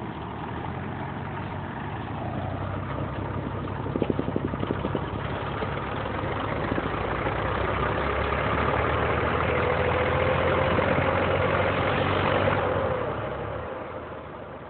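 Diesel tractor engines running at low speed. The nearest tractor's engine grows steadily louder with a slowly rising whine as it comes close, then fades near the end. A short quick rattle about four seconds in.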